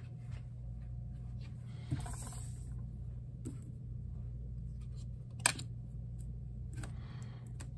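Trading cards being handled and laid down on a wooden table: soft slides and rustles, with one sharp tap about five and a half seconds in, over a steady low hum.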